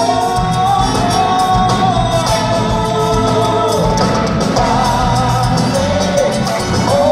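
Live band music with a male lead singer holding sung lines over piano, drums, guitar and bass, heard from the audience in a theatre hall.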